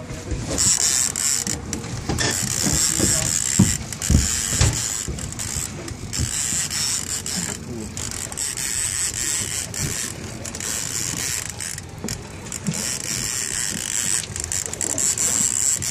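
Fishing reel being cranked in on a hooked salmon, a mechanical whirring that comes and goes in spells, with a few low knocks about four seconds in.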